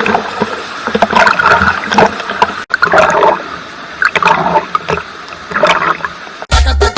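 Water splashing and gurgling in irregular bursts, with no music underneath. A heavy dance beat comes back in near the end.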